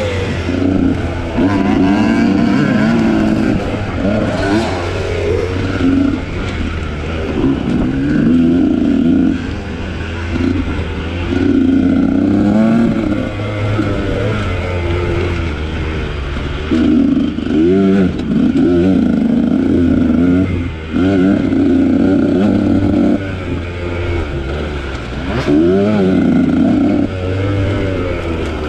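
Husqvarna TE300i two-stroke dirt bike engine revving up and down as it is ridden hard off-road. The throttle opens and closes over and over, each surge of a second or two rising in pitch before a short drop.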